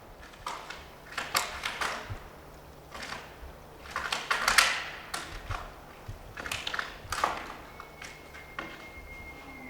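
Irregular crunching and snapping of steps through dry brush and leaves, in uneven clusters. A faint, steady, high whistle-like tone begins near the end.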